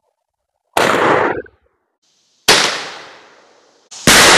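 Three shotgun blasts from a 20-gauge over-and-under shotgun, about a second and a half apart. Each one starts sharply and dies away before being cut off abruptly. The last is the loudest and rings on the longest.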